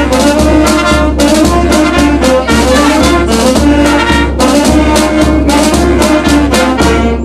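Marching street band playing: trumpets, trombones and saxophones over a steadily beating bass drum and snare drum. The music breaks off near the end.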